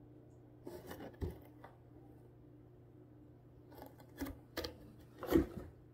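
Cardboard box scratching and scraping as a cat moves and paws inside it, in a few short scrabbling bursts, the loudest near the end.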